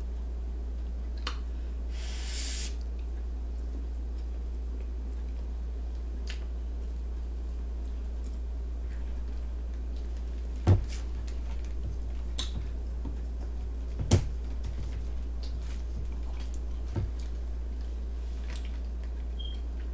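A steady low electrical hum underlies a few sharp clicks and knocks from eating and from handling a plastic drink bottle at the table. The two loudest knocks come about eleven and fourteen seconds in. There is a brief hiss about two seconds in.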